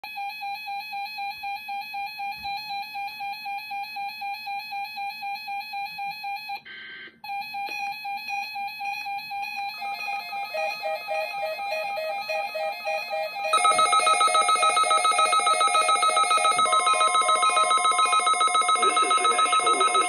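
Several NOAA weather radio receivers sounding their alert tones as they pick up the required weekly test. One radio beeps at a steady pitch about two to three times a second, with a brief buzzing burst cutting in about seven seconds in. More radios join in with beeps at other pitches from about halfway, and the combined beeping turns clearly louder a few seconds later.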